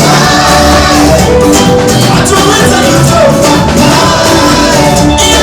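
Live gospel band music, loud and steady, with a singer's voice over the band and a driving beat.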